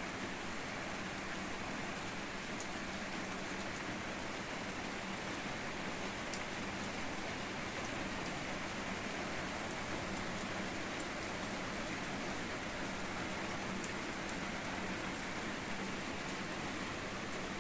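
Steady rain falling on a garden: an even hiss with scattered faint drop ticks.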